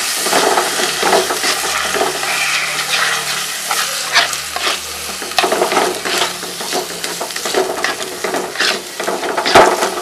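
Ground coconut masala paste sizzling as it fries with shallots and green chillies in a pot, while a spoon stirs and scrapes through it in irregular strokes, with one louder scrape near the end.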